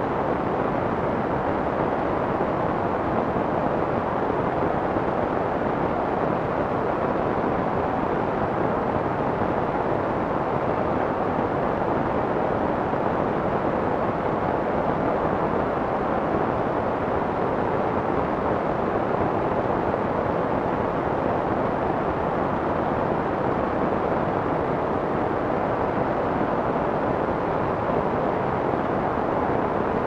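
Steady soft white noise: an even, muffled hiss with the treble rolled off and no droplets, clicks or tones in it.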